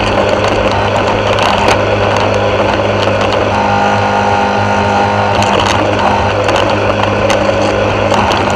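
Yard Machines walk-behind rotary mower's small gas engine running steadily under load as it cuts grass, with scattered sharp ticks over the even drone.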